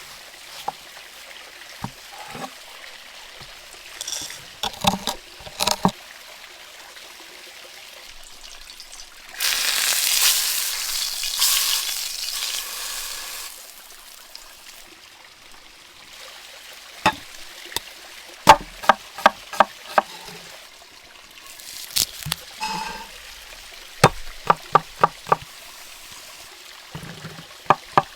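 Food frying over a fire sizzles loudly for about four seconds, a third of the way in. In the second half come several quick runs of sharp knife chops on a cutting board, about three to four a second.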